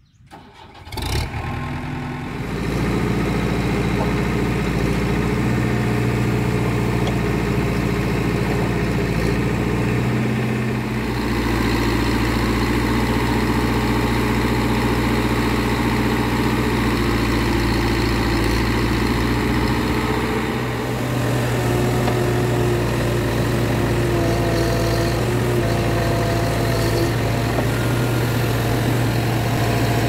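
Diesel engines of a Case 770 backhoe loader and a Mahindra Yuvo 415 DI tractor running steadily side by side while the backhoe loads earth. The sound comes in sharply about a second in, after a brief near-quiet moment, and then holds steady.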